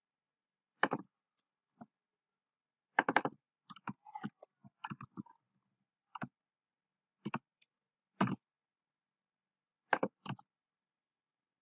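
Computer keyboard keystrokes and mouse clicks while text is being edited. They come as scattered single clicks and two short flurries, a second or more apart, with dead silence between them.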